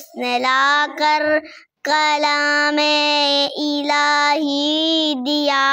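A girl singing a naat unaccompanied in a child's voice, holding long drawn-out notes, with a short pause for breath about a second and a half in.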